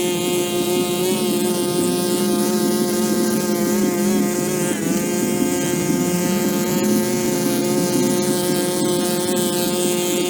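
A small engine running steadily at a constant pitch, with a hiss over it.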